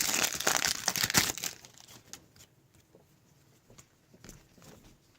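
A trading card pack's wrapper crinkling and tearing open, loud for about the first second and a half. After that come only faint rustles and light ticks of cards being handled.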